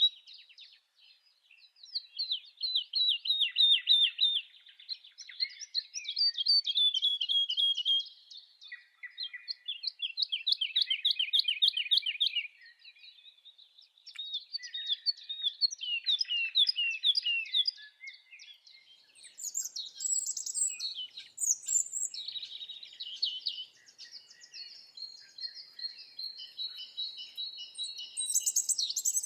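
Small songbird song: phrases of rapid chirps and trills, each a few seconds long, with short pauses between. The second half is higher-pitched and busier.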